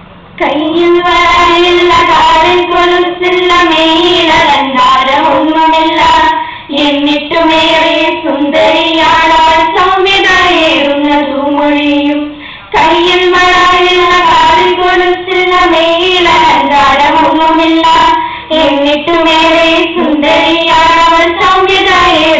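A girl singing a song into a microphone in long, drawn-out phrases, with a brief pause a little past halfway.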